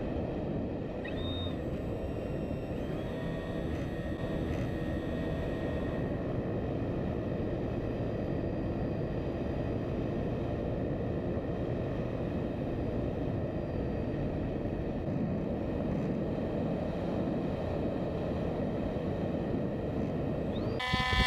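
Steady wind rush over an RVJET flying wing's onboard camera in flight, with faint steady tones from its DJI E600 electric motor and propeller beneath.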